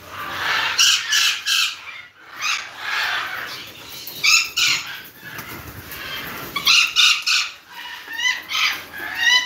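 Parrots squawking: harsh, pitched calls in quick runs of two to four, repeated several times, some sliding in pitch near the end.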